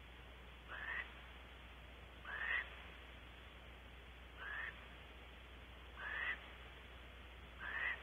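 An animal calling: five short, rising, rasping calls, one about every second and a half.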